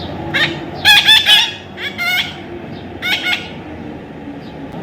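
Parrot giving a series of short squawking calls in clusters, loudest about a second in, with a few more near the middle and a last pair about three seconds in.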